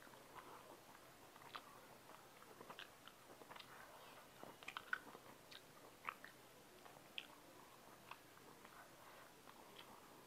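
Faint chewing of prawns by hand-eating diner, picked up close: soft irregular mouth clicks and small crunches, with a brief flurry about halfway through.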